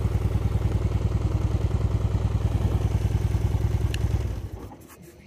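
Harley-Davidson touring motorcycle's V-twin engine idling with an even, lumpy pulse, then shut off with a click of the handlebar kill switch about four seconds in, running down quickly to stillness.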